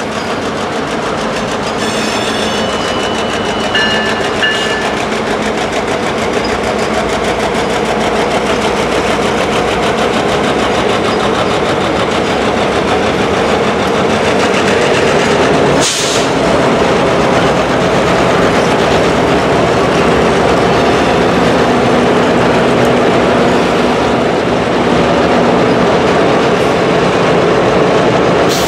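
Canadian Pacific F-unit diesel locomotives rolling past, engines running, followed by passenger cars with steel wheels rumbling and clicking over the rail joints. The sound builds slowly louder, with one sharp clack about halfway through.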